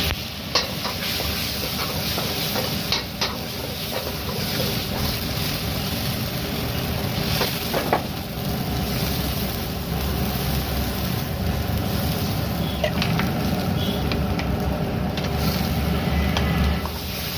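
Gobi manchurian frying and being stirred in a pan: steady sizzling over a low rumble, with a few sharp knocks.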